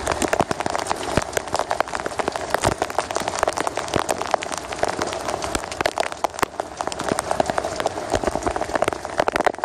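Rain falling on a sailboat's deck, with water dripping off the boom: many irregular sharp drop hits over a steady hiss.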